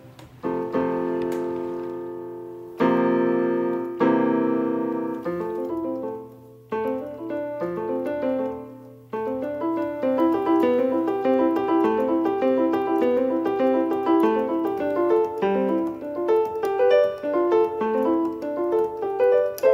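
Background piano music: slow ringing chords, then a quicker flowing run of notes from about nine seconds in.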